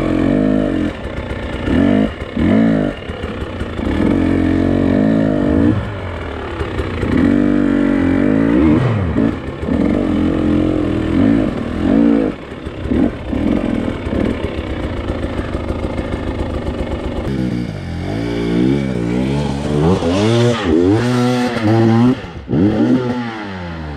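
Husqvarna TX300i two-stroke fuel-injected dirt bike engine revving up and down as the throttle is opened and closed over and over. The revs swing up and down faster in the last few seconds.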